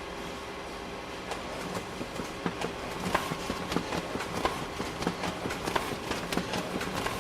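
Photocopier running: a steady motor hum, joined about a second in by a quick, slightly uneven mechanical clacking, about three clacks a second.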